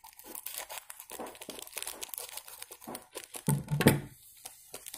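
Plastic seasoning sachet crinkling as it is snipped open with scissors and squeezed out, a rapid run of small crackles, with a louder bump about three and a half seconds in.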